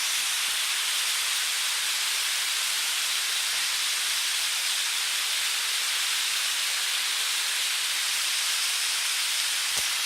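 Waterfall: falling water making a steady rush.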